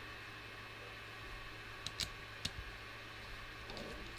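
A few faint, sharp clicks of small parts being handled on a workbench during a quadcopter teardown, three in quick succession around the middle, over quiet room tone.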